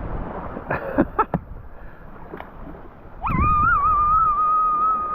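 A child's long, high-pitched yell held on one steady note for over two seconds, starting a little past halfway and wavering at its onset. A few short sharp sounds come before it, about a second in.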